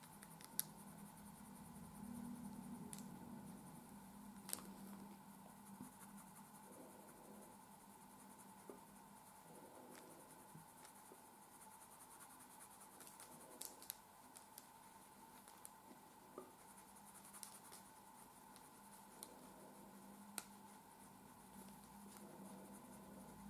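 Faint scratching of a coloured pencil shading on paper, with a few light ticks scattered through.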